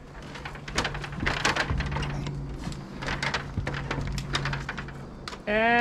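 Scattered wooden knocks and clicks as several people lift and carry a long wooden ridge beam up onto framed walls, over a steady low hum.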